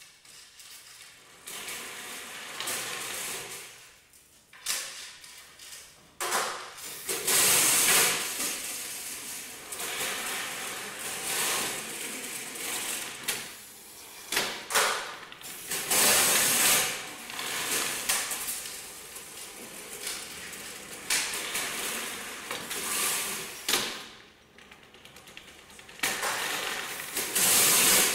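Rattling and clattering of a LeanTek roller-track line driven by a pneumatic rack as loaded trays move along it. The noise comes in irregular bursts of one to a few seconds, with a quieter spell a few seconds before the end.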